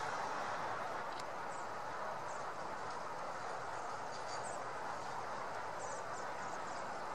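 Steady outdoor background rush, an even hum with no clear single source, with a few faint high chirps and a small click about a second in.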